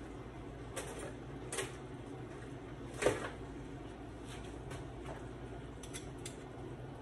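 Light kitchen clatter: several short knocks and clinks of utensils and cookware, the loudest about three seconds in, over a steady low hum.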